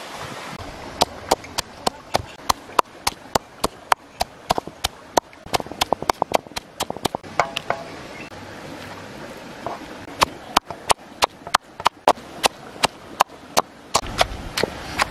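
Pestle pounding in a wooden mortar, first crushing chilies and garlic, then bruising shredded green mango for a salad: sharp knocks about three a second, with a short break midway.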